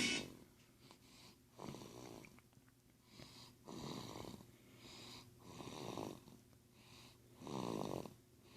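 A one-month-old baby snoring softly in her sleep, a short snoring breath every couple of seconds.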